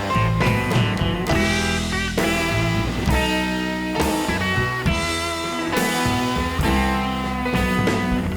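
Background music: rock instrumental with electric guitar and drum kit, chords changing about once a second.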